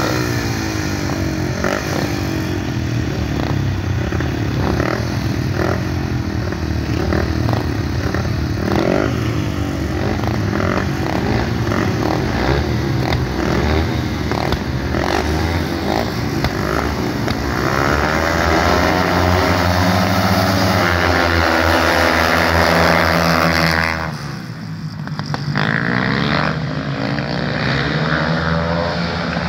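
Several speedway bikes' 500 cc single-cylinder engines revving in short repeated blips while held at the start line, then rising in pitch and running hard at full throttle from about 18 seconds in. The sound dips briefly about 24 seconds in, then the engines carry on at full throttle.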